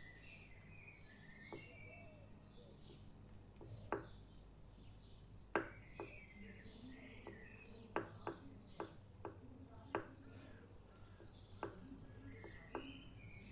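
A metal spoon clinking against a glass dish about ten times, at irregular intervals, while spreading a soft cream cheese filling. Birds chirp faintly in the background.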